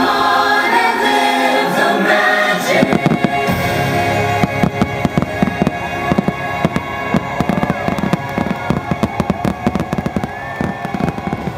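Fireworks going off in a rapid, dense volley of sharp bangs from about three seconds in, over loud show music.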